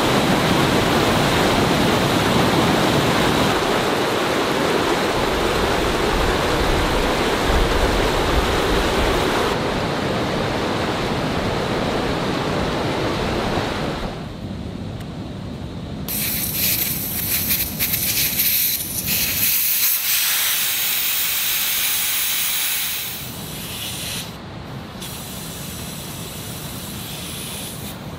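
Steady rushing noise of strong wind, with no speech. The sound changes abruptly several times, and it becomes quieter and thinner, more of a hiss, in the second half.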